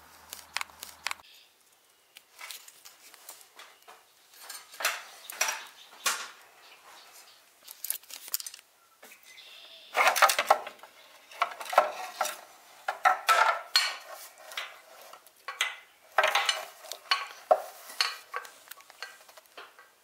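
Hands working at the housing of a Genie Professional garage door opener: irregular clicks, knocks and rattles in scattered clusters with short quiet gaps, busiest from about ten seconds in.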